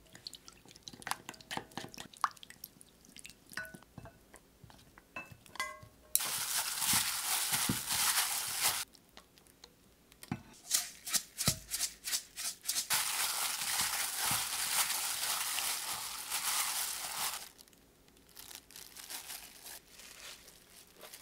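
A wooden spoon stirring a soy-sauce and chilli seasoning in a glass bowl, tapping the glass with light ringing clinks. Then a disposable plastic glove rustles and crinkles in long stretches as sliced zucchini is tossed in the seasoning by hand.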